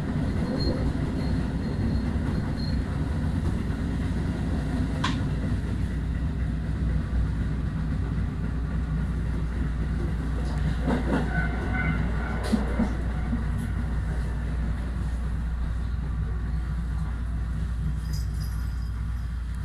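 Electric train heard from inside at the front, running steadily with a continuous low rumble of wheels on rail. A level-crossing warning bell rings briefly as the train passes the crossing about ten seconds in.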